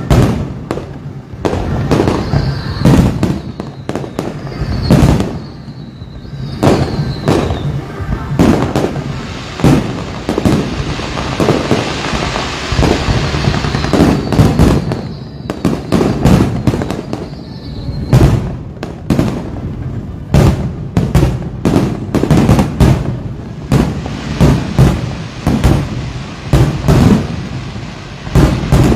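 Fireworks display: shells bursting in quick irregular succession with deep booms. A few short falling whistles come early on and again midway, and a spell of dense crackling sounds in the middle.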